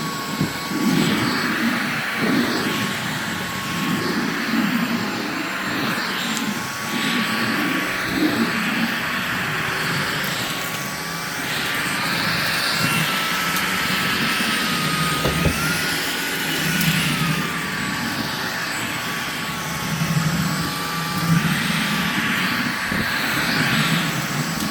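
Shark Detect Pro cordless vacuum running, a steady motor whine over the hiss of rushing air, with irregular low rattles as it picks up debris from the floor. The whine steps up in pitch about halfway through and drops back a few seconds later.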